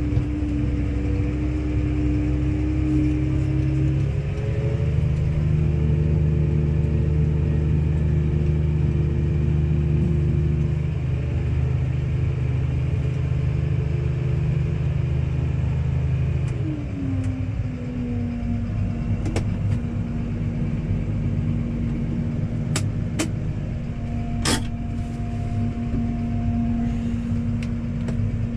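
Case Maxxum 140 tractor engine running steadily. Its speed rises about four seconds in and falls to a lower, steady speed at about the seventeen-second mark, with a few light clicks or knocks in the second half.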